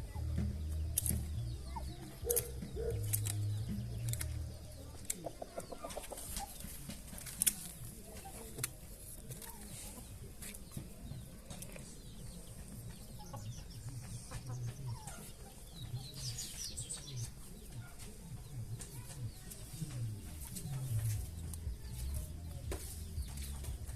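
Farmyard poultry clucking and calling, with a run of high chirping calls past the middle. Scattered sharp clicks and a low rumble run underneath.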